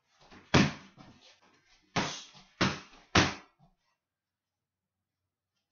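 Muay Thai strikes smacking into a held Thai kick pad: one hit, then three in quick succession about half a second apart.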